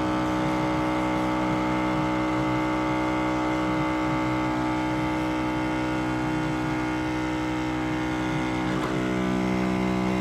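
Heineken Sub beer machine running with a steady, multi-toned mechanical hum while a pint is poured from its fully opened tap. The hum changes slightly near the end as the pour is finished.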